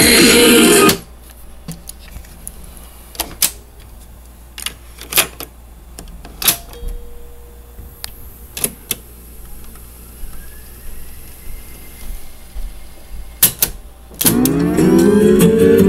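Music playing from a JVC RC-M70JW boombox cuts off about a second in. About ten sharp mechanical clicks follow, some in quick pairs, from its cassette deck's piano-key buttons and switches being pressed. The music starts again near the end.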